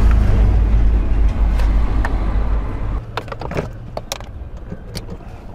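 Screwdriver and hand work on the plastic steering-column trim under a car's dashboard: a heavy low rumble for the first three seconds that then drops away, followed by a run of light clicks and knocks.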